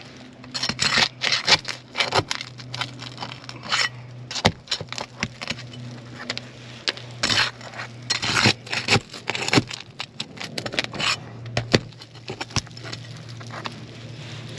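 Asphalt shingles being pried up and unsealed by hand, giving irregular sharp crackles, snaps and scrapes in clusters over a steady low hum. The shingles are too stiff to lift without creasing.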